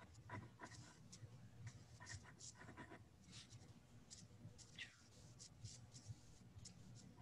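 Faint scratching of writing on paper, a quick irregular run of short strokes over a steady low hum, heard through a video-call microphone.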